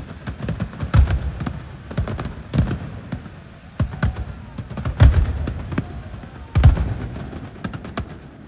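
Fireworks display: a rapid string of sharp cracks and crackles over deep booms, with the biggest booms about one, five and six and a half seconds in.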